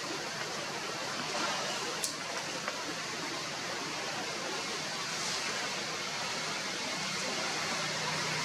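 Steady hissing outdoor background noise with no animal calls, and a single sharp click about two seconds in.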